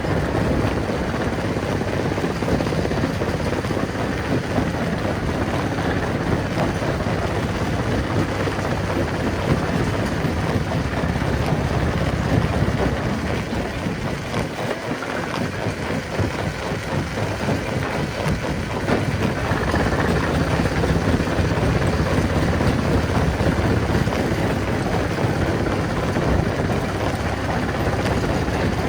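Rock crushing machine running: a steady, heavy engine-driven drone with dense rough noise, easing briefly about halfway through.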